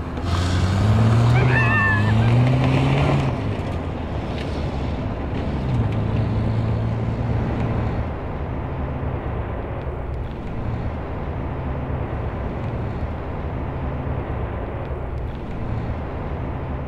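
Pickup truck engine pulling away, its pitch rising and falling over the first few seconds as it revs, then settling into a steadier low drone.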